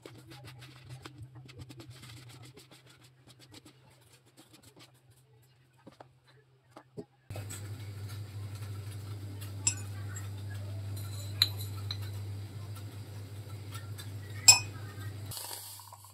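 A wire whisk beating chocolate cake batter in a bowl, a fast light ticking. Then, over a steady low hum, a spoon clinks against a glass mug three times as instant coffee is added, the last clink the loudest, and near the end a short hiss as boiling water starts to pour into the mug.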